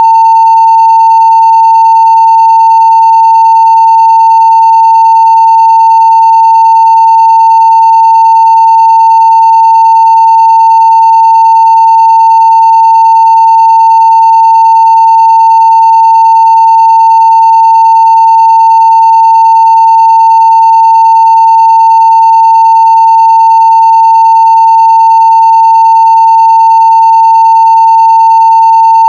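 Continuous 900 Hz sine-wave test tone at full scale (0 dB), held perfectly steady with no breaks.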